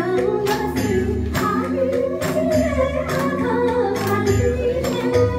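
Women singing into microphones over an amplified backing track with a steady beat.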